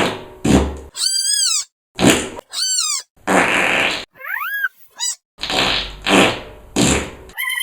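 Fart sound effects alternating with high-pitched screams: about four noisy, low fart blasts, each under a second to two seconds long, traded back and forth with short, squealing screams that bend up and down in pitch.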